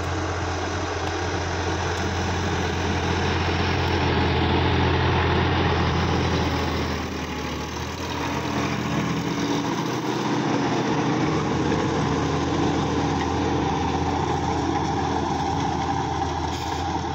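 Sonalika DI-50 RX Supreme tractor's diesel engine running steadily while the tractor pulls a rotary tiller through the soil, with a brief dip in level about halfway through.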